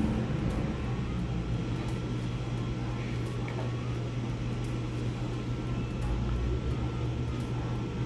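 Steady low background hum with a faint hiss over it.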